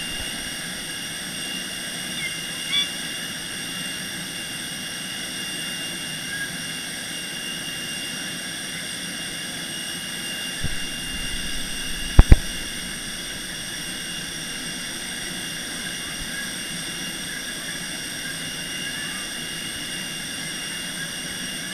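Steady whine and hum of a parked Airbus A320's running machinery, with several high steady tones held throughout. Two sharp knocks in quick succession about twelve seconds in are the loudest sounds, with a few lighter knocks around them.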